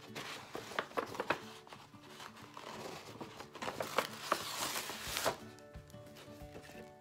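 Paper packaging rustling and crinkling as a paper envelope and its tissue wrapping are opened and an item is pulled out, busiest about four to five seconds in, over background music.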